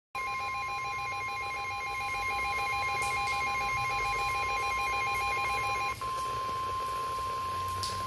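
NOAA Weather Radio warning alarm tone: a steady 1050 Hz beep heard through a weather alert radio's speaker, signalling that a warning broadcast is about to follow. Over it, the radio's own alert sounds as a rapidly alternating two-tone beeping, which stops about six seconds in and leaves the steady tone alone.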